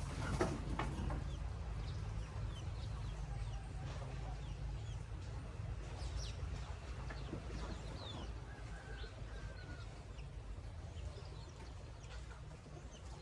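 Chickens clucking, with short high chirps scattered through, over a steady low rumble.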